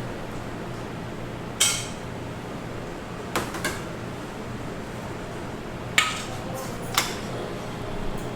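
Dishes and cutlery clinking: about five sharp, ringing clinks over a steady low background hum.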